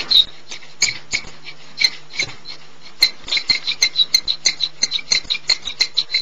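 A rough diamond being kerfed by hand, rubbed against another diamond to grind away its outer edges: short, sharp, high scratching squeaks and clicks. They come sparsely at first, then in a quick run of strokes through the second half.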